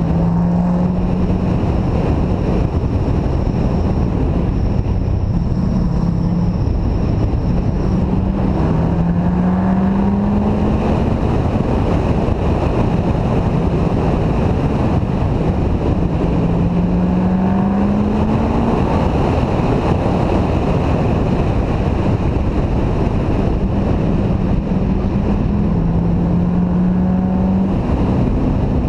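Chevrolet Corvette C6 V8 engine running on a racetrack, its pitch climbing three times as the car accelerates, under heavy wind noise on the microphone.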